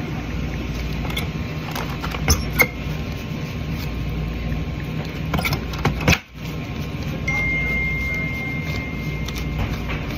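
Paper bills and the open cash register drawer being handled over a steady background hum, with a few sharp clicks and clinks between about two and six seconds in. A thin, steady high tone comes in about seven seconds in and holds for roughly three seconds.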